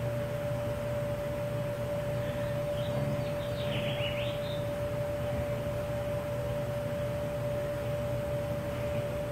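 A steady single-pitched hum over a lower background hum, with a few faint short chirps about three to four seconds in.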